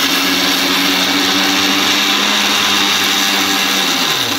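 Electric mixer-grinder running at full speed with its small steel jar, its blades grinding Oreo biscuits to powder. Near the end the motor's hum drops in pitch as it is switched off and winds down.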